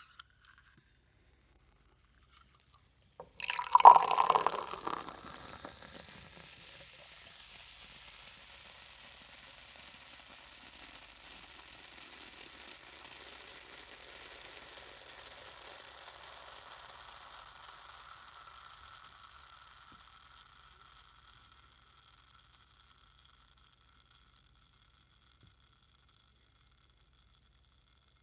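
Carbonated drink poured from an aluminum can, splashing loudly for a second or two, then fizzing with an even hiss that slowly fades away over about fifteen seconds.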